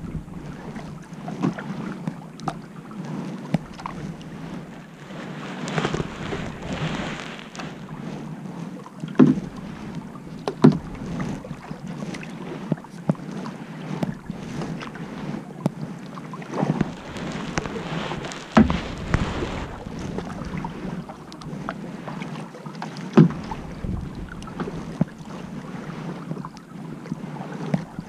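Kayak paddling on calm water: a double-bladed paddle dipping in and pulling through, with splashes and drips every second or two and occasional sharp knocks.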